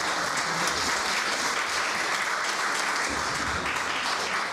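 Audience applauding steadily, dense clapping at an even level.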